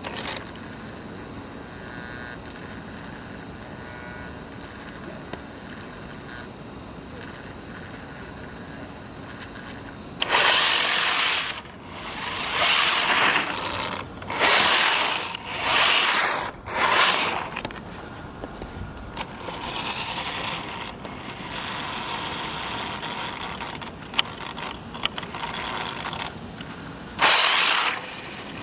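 Radio-controlled 1/10-scale on-road touring car running on rough asphalt. After a steady quiet background, a series of loud, noisy bursts of tyre and drivetrain noise comes about ten seconds in, four in quick succession as the car moves close by, with one more short burst near the end.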